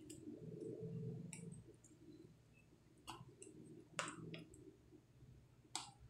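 Metal spoon clicking against a plastic tub while banana slices are turned in thick flour batter: several faint, sharp clicks spaced irregularly.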